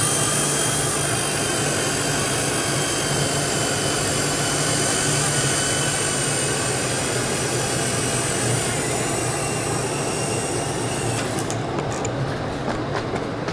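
Blade mCPX micro collective-pitch RC helicopter in flight: a steady high electric-motor whine over a low rotor hum. About eleven seconds in the high whine drops away, leaving the hum and a few light clicks.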